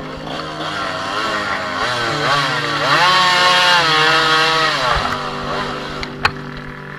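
Two-stroke dirt bike engine revving up and down under throttle on a steep muddy climb, then settling to a steady pitch about five seconds in, with a single sharp knock shortly after.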